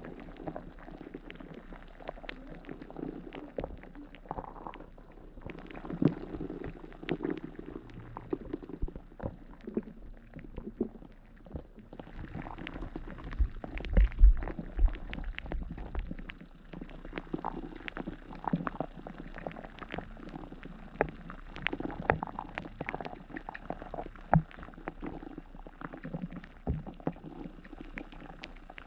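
Muffled underwater sound of river water heard through a submerged camera: a low rushing and gurgling, with many scattered small clicks and ticks and a brief low rumble about halfway through.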